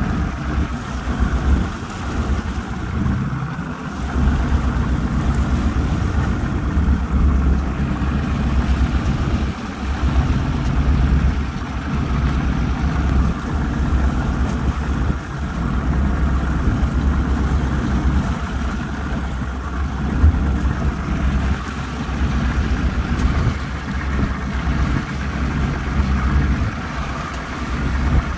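Yamaha V225 two-stroke V6 outboard running steadily at trolling speed, a low drone, with the hiss of water and wind over it.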